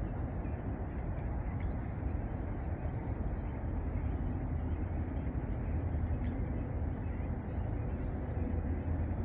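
Steady low rumble of distant road traffic. A faint steady hum joins near the end.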